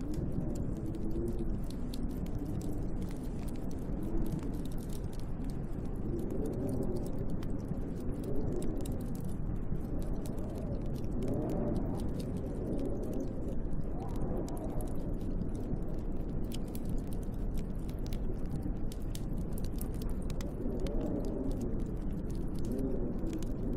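Snowstorm wind howling over a steady low rumble, its pitch wavering up and down with the gusts, with a wood fire crackling in small, quick ticks.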